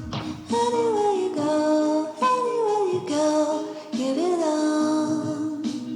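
Background pop music: a female voice sings a gliding, wordless melody over steady sustained chords.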